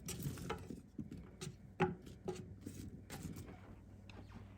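Chopped carrots and onion pieces dropping into a slow cooker: a scattering of light knocks and taps, the clearest about two seconds in.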